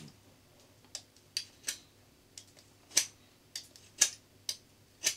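A pencil being sharpened by hand: about ten short, sharp clicks at irregular intervals as the blade bites into the wood.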